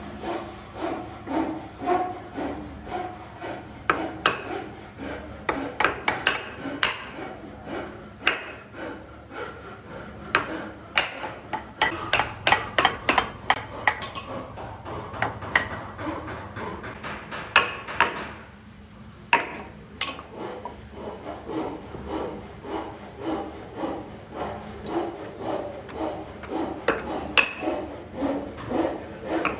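Irregular series of knocks on wood with rubbing and scraping between them, coming fastest in the middle.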